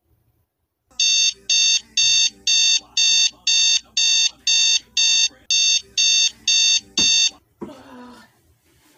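Wake-up alarm beeping loudly, about two high electronic beeps a second, a dozen or so in all, then switched off with a click near the end. A short vocal sound follows just after it stops.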